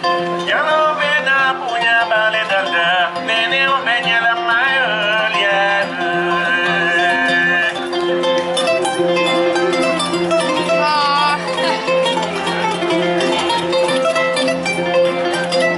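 Music: plucked string instruments over sustained low held tones, with a wavering melody line above them.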